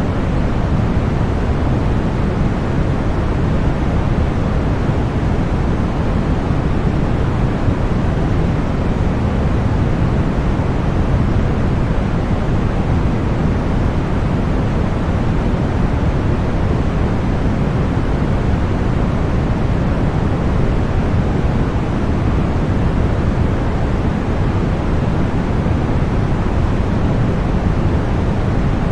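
Continuous generated white noise: a steady, unchanging rushing hiss, heaviest in the low range.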